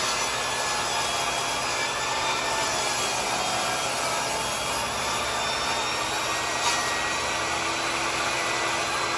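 Portable table saw running steadily as its blade cuts lengthwise through a wide wooden board.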